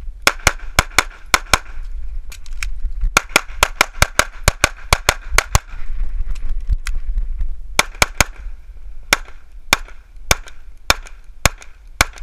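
ZEV Speedgun competition pistol firing a fast course of fire, about thirty shots, mostly in quick pairs, with a gap of about two seconds a little past halfway. A low rumble runs underneath.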